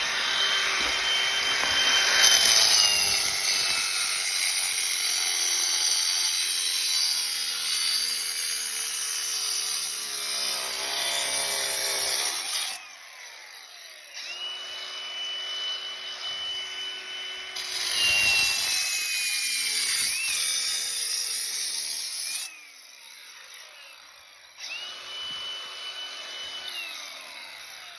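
Power cutting tool slicing into a clay (terracotta) sewer pipe: a high steady motor whine that sags in pitch as the blade bites, under a loud gritty grinding of cutting through fired clay. It cuts in three runs, breaking off about 13 and 22 seconds in, and the motor winds down near the end.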